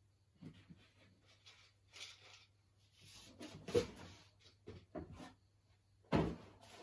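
Household handling clatter: scattered light clicks and rustles, a thump near the middle and a louder knock about six seconds in, like cupboard or door handling.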